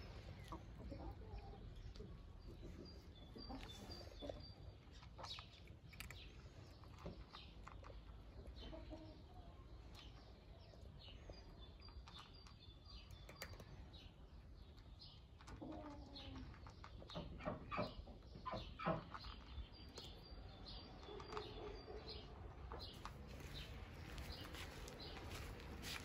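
Quiet garden sounds: a tabby cat crunching dry kibble close by, with hens clucking softly and small birds chirping in the background.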